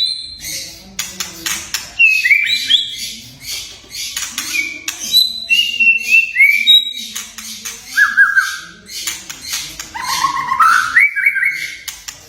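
White-rumped shama singing: short clear whistled notes sliding up and down, mixed with rapid harsh crackling and clicking notes (the 'kretekan').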